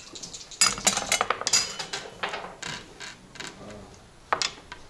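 Backgammon checkers clacking against the board and each other as they are moved, in a rapid run of sharp clicks about half a second in that thins out, with a single sharp click near the end.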